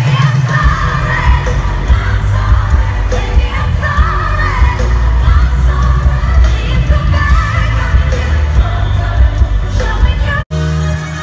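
Live pop concert music: a woman singing lead into a microphone over a loud amplified band with a heavy bass beat. Near the end the sound cuts out for an instant, and a different part with choir-like backing vocals begins.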